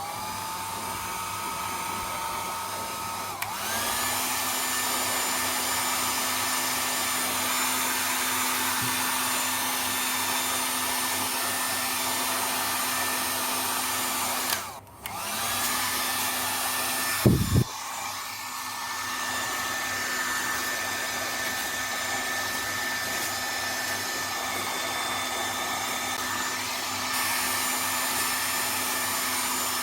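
Philips HP 8142 1000 W hair dryer blowing with a steady rush of air and a motor whine. About three and a half seconds in the whine steps up in pitch. Around halfway it briefly cuts out and spins back up, and a short thump follows soon after.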